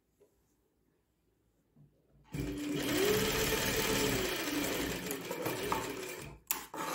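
Electric straight-stitch sewing machine starts about two seconds in and runs a short seam for about four seconds, its pitch rising and then falling, before stopping. Near the end come a few short sharp snips as scissors cut the thread.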